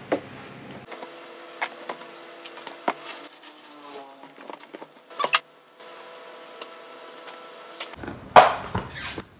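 Plastic drinking-straw panels being handled and fitted together: scattered light clicks and taps of plastic, a pair of sharper knocks about halfway and a louder scraping knock near the end.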